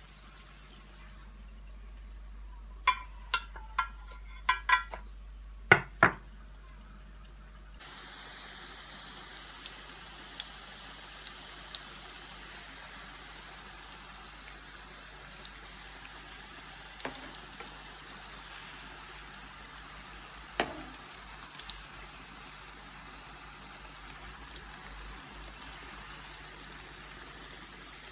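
A slotted spoon clicks and knocks sharply against a frying pan several times, about three to six seconds in. From about eight seconds in, dough pastries deep-frying in hot oil sizzle with a steady hiss and occasional pops.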